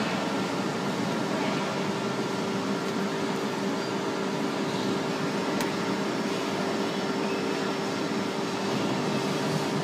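DH1600 injection moulding machine running its moulding cycle: a steady hum from its hydraulic drive with a constant tone, and one sharp click about five and a half seconds in.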